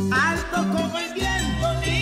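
Background music: a Latin-style song with a singing voice over held bass notes.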